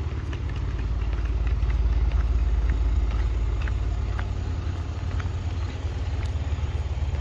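Low, steady rumble of an idling vehicle engine, with faint light footsteps on asphalt.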